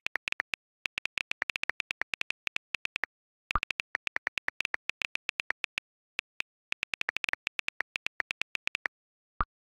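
iPhone on-screen keyboard clicks from fast typing, in quick runs of taps with short pauses. Twice a short WhatsApp message-sent sound plays, about three and a half seconds in and near the end.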